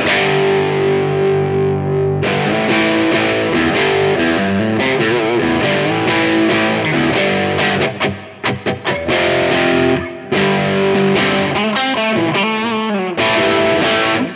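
Electric guitar played through a NUX 63 Diamond, a Vox AC30-style overdrive pedal: distorted chords ringing out, with a run of short, choppy strums about eight seconds in.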